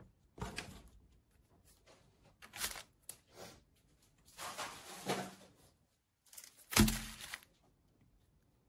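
Plastic candy-bar wrappers rustling and crinkling as the bars are handled, in several separate bursts, with a thump about two-thirds of the way through, the loudest sound.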